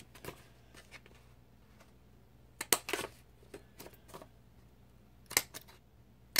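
A few short rustles and clicks of paper and planner supplies being handled, in small clusters near the middle and again near the end, over a low steady room background.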